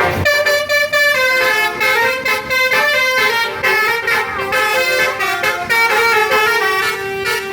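Basuri telolet musical horns on buses playing a tune: a run of held notes stepping from pitch to pitch, sometimes sounding together.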